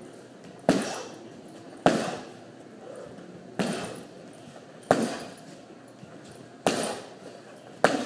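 Heavy punching bag struck six times at uneven intervals of one to two seconds. Each hit is a sharp smack that dies away over about half a second.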